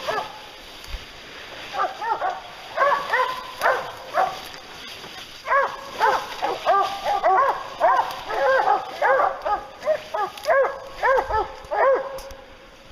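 Hunting hounds baying at a bear they have treed, in volleys of rapid barks. The barking starts about two seconds in, pauses briefly, then runs dense and unbroken until it drops away near the end.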